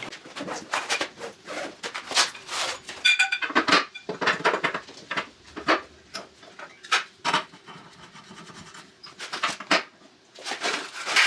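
A Tembo Tusk Skottle grill being unpacked from its padded fabric bag: rustling of the bag and irregular clatter and knocks of the metal legs and pan being handled, with a brief ringing tone about three seconds in.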